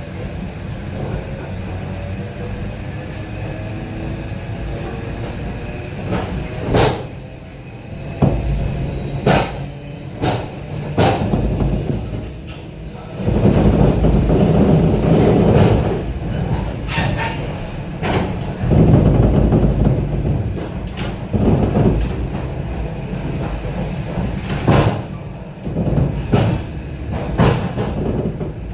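Ride inside an ET2M electric multiple-unit train as it pulls away: a whine from the traction motors rises in pitch over the first few seconds, then the wheels clatter over rail joints and points with a heavy rumble, loudest about halfway through.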